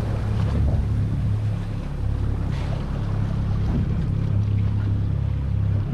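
Low steady hum of a boat's engine running, with wind and water noise over it.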